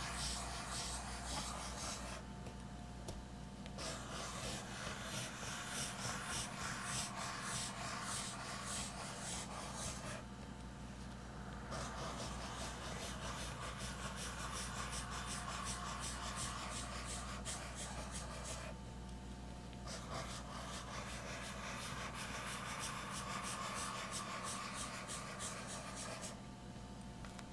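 Pencil scratching across sketchbook paper as it draws long continuous wavy lines, stopping for a second or so about every eight seconds when the pencil lifts to start the next line.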